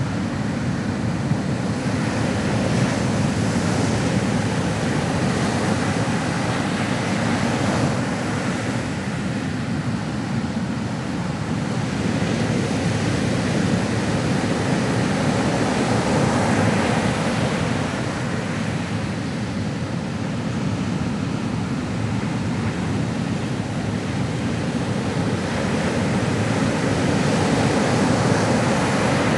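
Ocean surf: waves breaking and washing in a continuous rush of water that swells and eases every several seconds.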